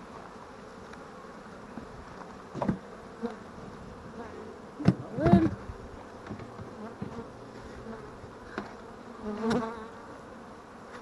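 Honey bees from a freshly installed package buzzing around the open hive, with single bees flying close by in short buzzes that rise and fall. A few wooden knocks as the hive box and lid are set in place, the loudest about halfway through.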